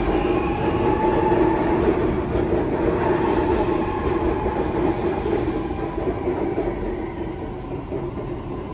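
Sydney Metro North West Line electric train pulling out of the platform: a steady electric motor hum with a higher whine over rolling rumble, fading as it moves away.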